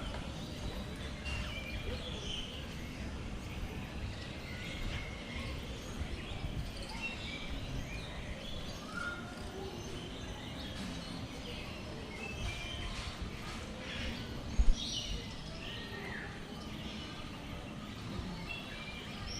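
Assorted birds chirping, short calls scattered throughout, over a steady low rumble of background noise. A brief low thump is heard about three-quarters of the way through.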